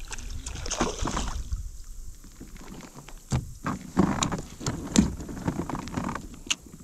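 A hooked northern snakehead splashing at the surface beside a kayak, then swung aboard. From about three seconds in come a series of sharp knocks and taps as the fish lands and thrashes against the kayak's plastic hull.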